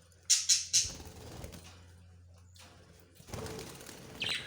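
Budgerigars chirping: three short, sharp high calls in quick succession early on, then more chirps near the end.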